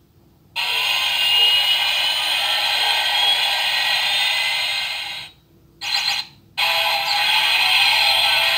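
Electronic sound effects from the Auldey DX Rescue Driver toy's small built-in speaker, with almost no low end, playing its Giant Saver summon sequence. A loud, noisy effect starts about half a second in and fades out near five seconds, a short burst follows around six seconds, and then another effect begins and carries on.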